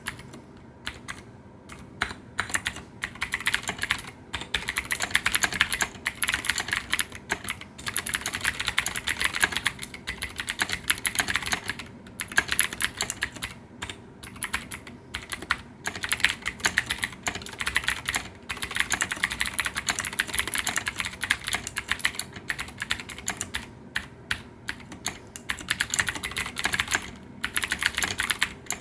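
Leopold FC750R mechanical keyboard with clicky blue switches and SA-profile PBT keycaps being typed on. Fast runs of keystrokes come with short pauses between them.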